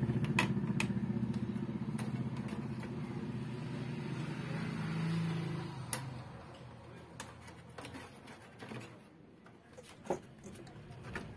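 A motor vehicle engine running steadily, fading away over the first half. After it fade out come a few faint clicks and taps from hands working on wires and connectors on a CRT TV chassis.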